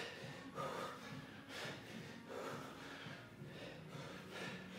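A man breathing hard with repeated sharp exhales, in rhythm with the strokes of heavy exertion during kettlebell swings.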